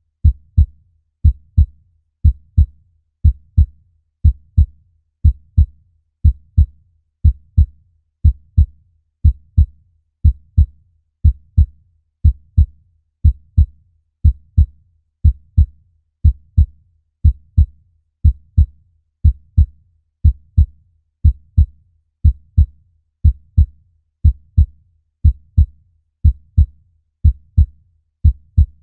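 Human heartbeat sound: a steady, low lub-dub, each beat a close pair of thumps, at about one beat a second.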